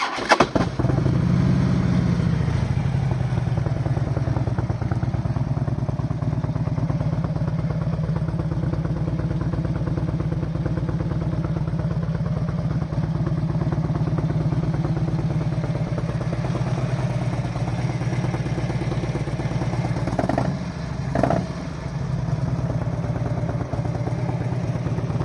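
2008 Harley-Davidson Street Glide's stock 96-cubic-inch fuel-injected V-twin, breathing through SuperTrapp dual exhausts, fires up and settles into a steady idle. Two short throttle blips come about twenty seconds in.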